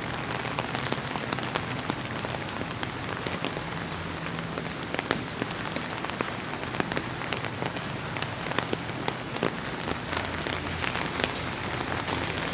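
Heavy rain pouring down steadily, with many sharp drop hits close by.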